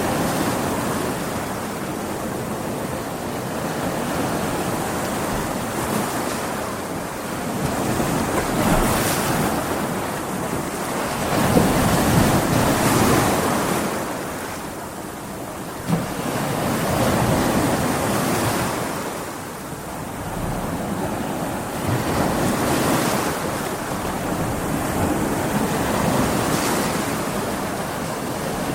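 Big ocean waves breaking and washing on a beach in stormy weather, with wind, swelling and ebbing every few seconds.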